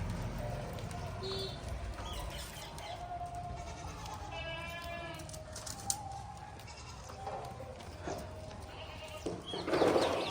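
Goats bleating in a herd: several separate calls, one held for about a second midway and the loudest near the end.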